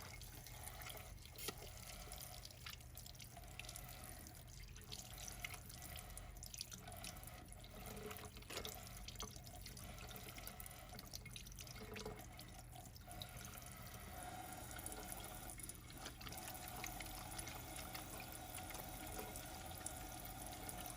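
Faint water running from a sink tap, with a few small drips and splashes as a bar of salt soap is worked into lather under it.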